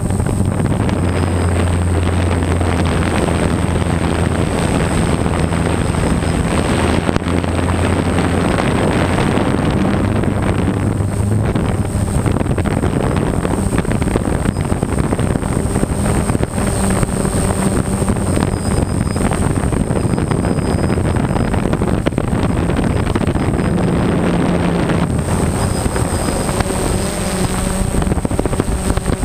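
DJI Phantom quadcopter's motors and propellers running in flight, heard through the GoPro mounted on it: a steady drone with a constant high whine, its low hum shifting in pitch a few times as the motors change speed, mixed with wind rushing over the microphone.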